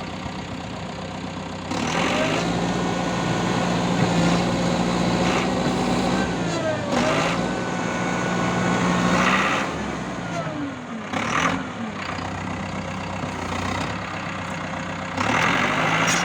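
Caterpillar D5K bulldozer's diesel engine idling, then raised in speed about two seconds in and held there for several seconds before dropping back, rising again near the end.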